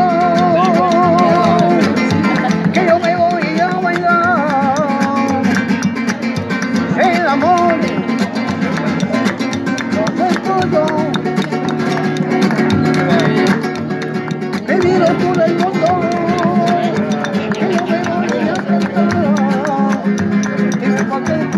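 Gitano flamenco-style music: a classical nylon-string guitar strummed with a capo, a man singing with a wavering, ornamented voice, and hand clapping along to the beat.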